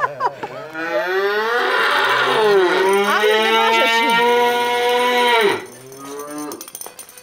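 A fighting bull bellowing: one long call of about five seconds that rises at first, holds level, then drops away.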